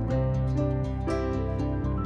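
Gentle instrumental background music with plucked, guitar-like notes.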